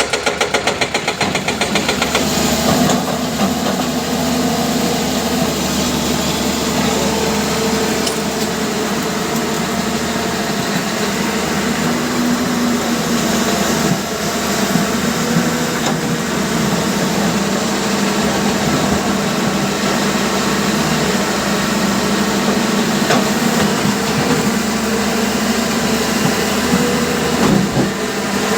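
Hyundai excavator's diesel engine running steadily. It pulses rapidly for the first two seconds or so, then settles into an even drone.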